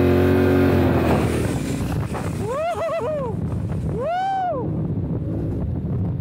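Yamaha Ténéré 700's parallel-twin engine running under way off-road, holding a steady note at first, then revving up and back down twice, about two and a half and four seconds in. Wind noise on the microphone throughout.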